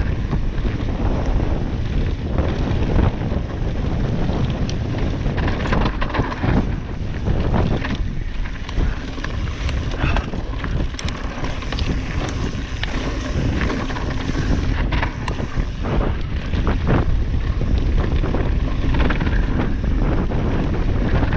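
Wind buffeting the microphone of a camera on a mountain bike riding fast down a rocky gravel trail, with tyres crunching over loose stones and the bike rattling in frequent sharp clicks and knocks.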